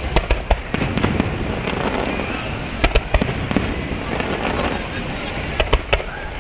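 Aerial firework shells bursting overhead: quick clusters of sharp bangs near the start, about three seconds in, and again near the end.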